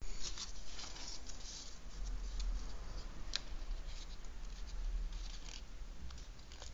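Origami paper rustling and crinkling as it is folded and handled, in irregular small crackles, with one sharper crackle about three seconds in.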